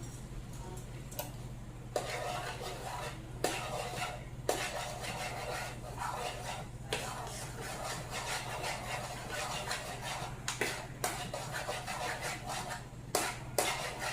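A spoon stirring and scraping thick instant mashed potatoes around a cooking pot, with repeated scrapes and clinks against the pot's sides from about two seconds in. A steady low hum runs underneath.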